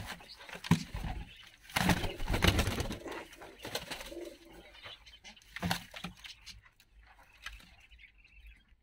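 Domestic fighting pigeons cooing: several low coos spread through the first six seconds, with a louder noisy burst about two seconds in.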